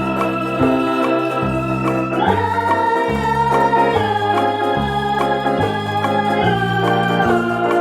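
Background music led by a sustained electronic organ, with held chords changing every second or so over a steady bass line.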